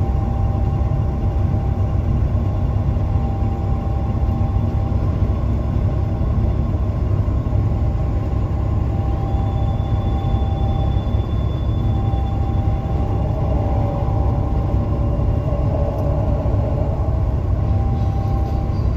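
Steady low engine drone and road noise heard inside a semi-truck's cab while it drives at road speed.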